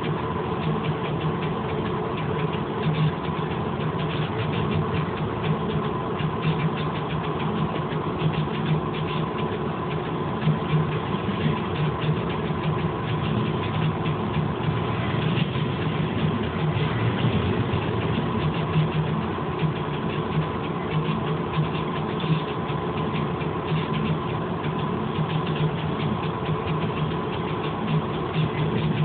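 Diesel locomotive engine running steadily at low power, heard from on board the locomotive as it rolls slowly along the track.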